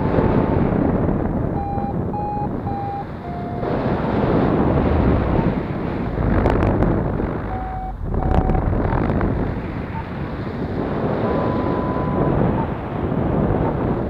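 Wind rushing over the microphone in flight, with a DIY Arduino acoustic variometer beeping over it. The short beeps come in bunches and shift a little in pitch, and there is one longer steady tone about eleven seconds in. The beeps signal rising air, and with the thermal sniffer switched on the vario beeps even in the slightest uplift.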